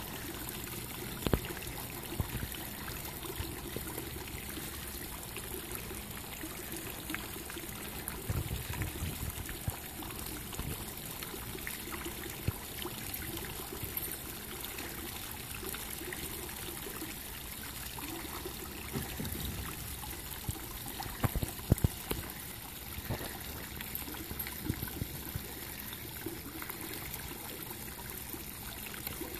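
Water from a home-built PVC pipe fountain spraying and trickling steadily into a plastic kiddie pool, with a few sharp knocks now and then, the loudest cluster about two-thirds of the way through.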